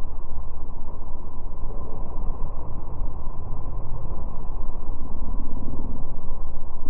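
Motorboat underway: a steady low engine rumble mixed with the rush of its churning wake.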